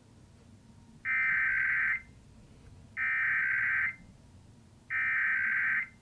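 Three bursts of Emergency Alert System SAME header data, the screeching digital tones of the coded alert heard over a TV broadcast, each about a second long and sent about a second apart. They are the coded header that opens a Required Monthly Test and comes before the attention tone.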